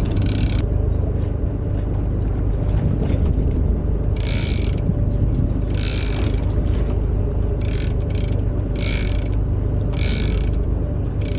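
Fishing reel's ratchet clicking in short bursts as line is pulled off to let a balloon float drift out, about six pulls in the second half. Under it runs a steady low rumble.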